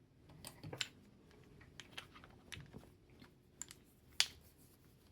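Scattered light clicks and taps of padlocks being handled, with one sharper click about four seconds in.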